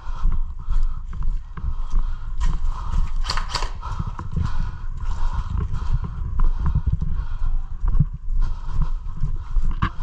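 Running footsteps and gear jostling against a body-worn action camera, heard as a constant uneven thumping, with a quick cluster of sharp clicks about three seconds in.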